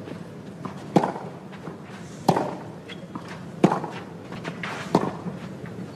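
Tennis ball struck by rackets in a baseline rally on a clay court: four sharp hits about 1.3 seconds apart.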